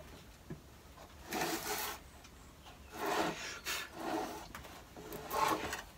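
Wood rubbing and scraping in a few short strokes as a wooden saw jig is handled and shifted on a workbench.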